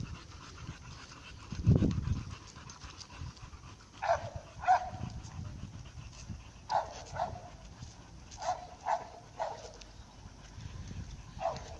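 An overweight dog panting while it walks, in short breathy puffs that come in irregular pairs and groups. A single louder low thump comes about two seconds in.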